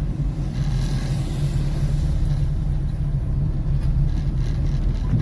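Car cabin rumble from engine and road while driving slowly over a speed bump, with a few faint knocks from the suspension near the end. The noise comes from the area of a recently replaced shock absorber.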